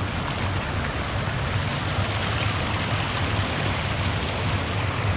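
Creek water flowing over a riffle: a steady, even rush with no breaks.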